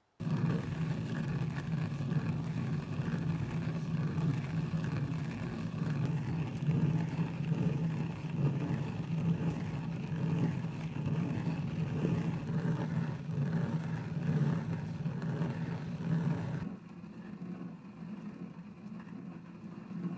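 Hand-turned stone quern grinding rice: the upper millstone turns on the lower stone with a steady, gritty rumble as it crushes the grains. About sixteen seconds in the sound drops to a quieter, duller rumble.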